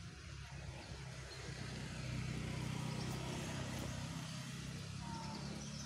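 A motor vehicle's engine running steadily, a little louder about two seconds in, over a hiss of outdoor noise.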